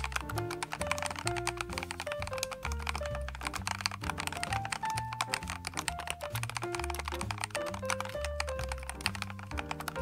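Rapid typing on a MechLands MC66 65% mechanical keyboard: a quick, continuous run of keystroke clicks, dampened by two layers of sound-absorbing silicone pads. Background music with a melody plays along.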